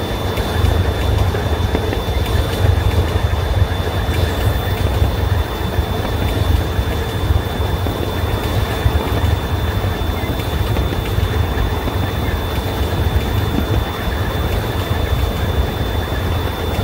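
Miniature-railway locomotive, the Melody Ranch Special Daylight, running steadily along the track: a continuous low rumble of the train under way, with no whistle or bell.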